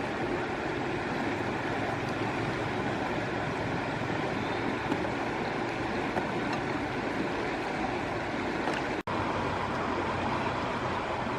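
Steady rushing of flowing river water, with a brief cut in the sound about nine seconds in.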